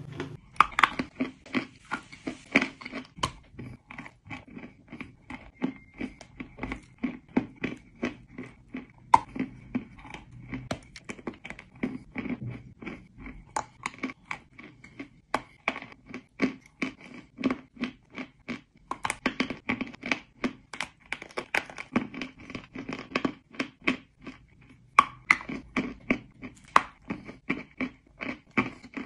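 Chunks of chalk being bitten and chewed close to the microphone: a steady run of sharp, dry crunches, about two to three a second.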